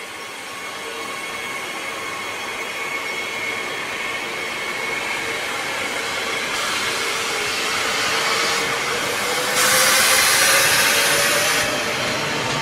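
Double-deck electric passenger train running slowly past, its motor whine rising a little in pitch as it gathers speed. A hiss of air comes in about six and a half seconds in, and a louder hiss about nine and a half seconds in lasts about two seconds.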